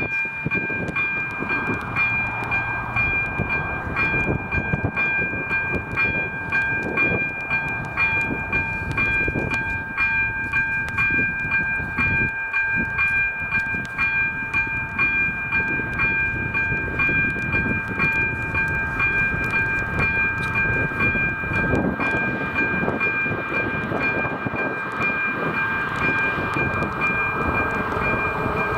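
Level-crossing electronic warning bell ringing with an even, repeating ding while the red warning lights flash, the warning that a train is approaching. Near the end a rising rumble joins it.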